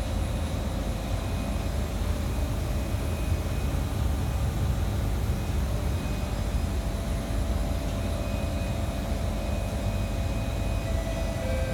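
Kawasaki C151 metro train running, heard from inside the passenger car: a steady low rumble from the wheels and running gear. Faint motor tones sound over it and grow stronger near the end.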